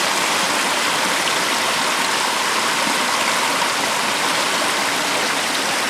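Creek water pouring steadily through the notch of a cedar-board weir at about 315 gallons per minute: an even, unbroken rush of water.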